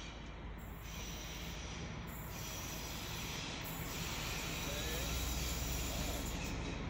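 An approaching locomotive, its steady low running hum and track noise growing gradually louder as it nears.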